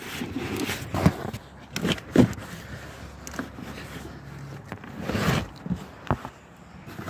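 Gusty wind buffeting the microphone in a rain-and-snow storm, with uneven swells of rumble and scattered thumps and rustles.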